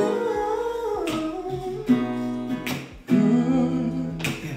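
Electric guitar strumming a few slow chords, with a woman's wordless singing sliding between notes over it: the intro of a song.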